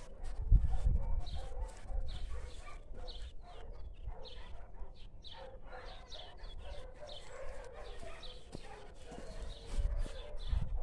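Dogs barking over and over in short calls, with a few low thumps about half a second in and again near the end.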